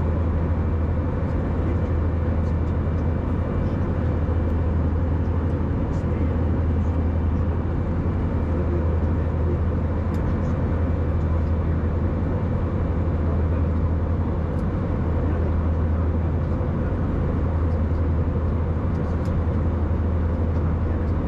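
Steady cabin noise inside an Airbus A319 with its engines running: an even rush of air and engine sound over a strong low hum.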